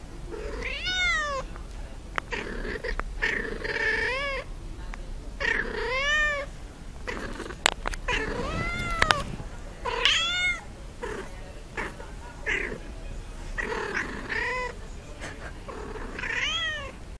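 A cat meowing over and over, about eight drawn-out calls that each rise and fall in pitch, with two sharp clicks in the middle.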